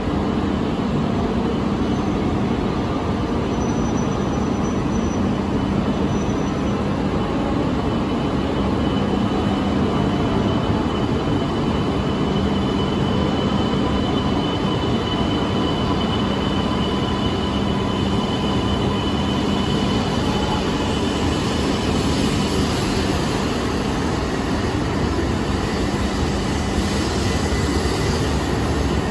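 Shinkansen bullet train running through the station: a steady, continuous noise with a thin high whine through the middle, growing hissier in the last third.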